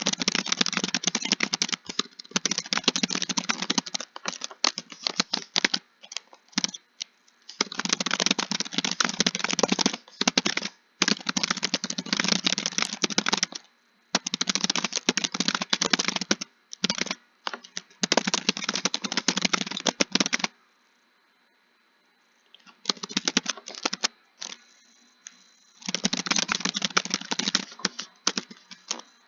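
Fast typing on a computer keyboard, in runs of rapid key clicks a few seconds long, broken by short pauses and one longer pause about two-thirds through.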